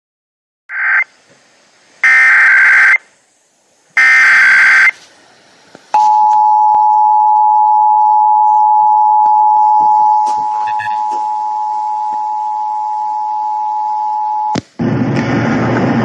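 Emergency Alert System test on a radio broadcast: three short bursts of the SAME digital header tones, then the two-tone EAS attention signal sounding steadily for about eight seconds and dropping in level partway through. An announcer's voice starts just before the end.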